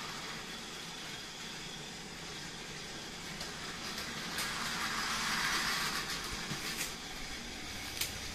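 Battery-powered Plarail toy trains running on plastic track: a steady motor whir with the rattle of wheels on the rails, growing louder for a couple of seconds in the middle as a train passes close. A few sharp clicks near the end.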